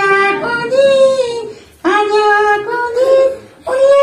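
A puppeteer's high voice drawing out long sung notes in three phrases, with two short breaks about two seconds and three and a half seconds in.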